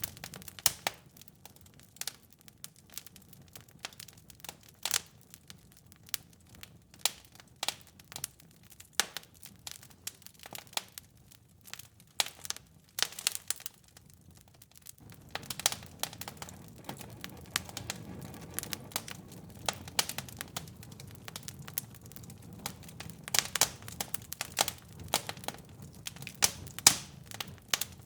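Wood fire in a fireplace crackling, with irregular sharp pops and snaps over the low rush of the flames, which grows louder about halfway through.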